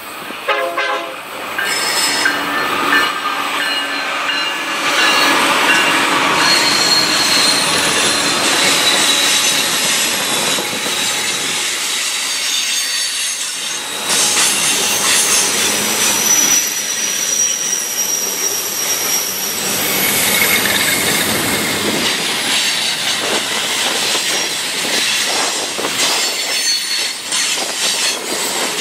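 Freight train rolling past with its steel wheels squealing. Thin high-pitched squeals come and go over a steady rush of rolling noise.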